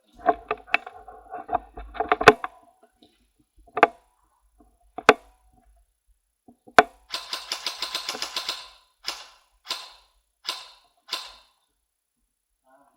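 Airsoft replica guns firing: scattered single shots, then a sustained automatic burst about seven seconds in, followed by four short bursts.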